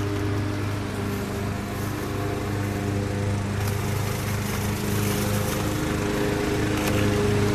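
Small engine running at a steady speed, a constant drone with a hum.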